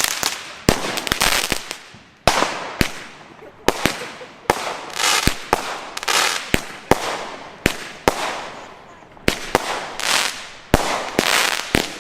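Fireworks going off in quick, uneven succession: sharp bangs, often more than one a second, with hissing and crackling between them.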